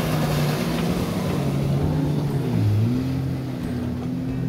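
Jet skis speeding close past the boat, their engines running steadily, with a brief drop and rise in pitch about two and a half seconds in.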